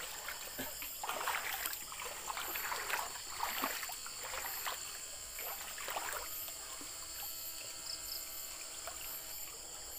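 People wading through shallow water, with irregular splashes and sloshing as their legs move, most active in the first half. A steady high whine and a faint high pulsing run underneath.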